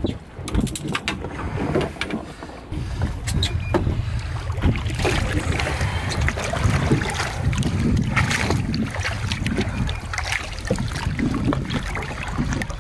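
Water sloshing and splashing against a boat hull as a hooked cobia is held at the surface on a lip grip, with a low steady rumble of wind on the microphone from about three seconds in. Sharp clicks and knocks of handling come in the first couple of seconds.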